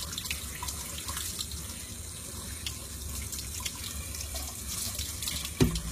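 Water running and splashing into a sink as a newborn's hair is rinsed with water poured over the head, a steady wash. A short louder thump near the end.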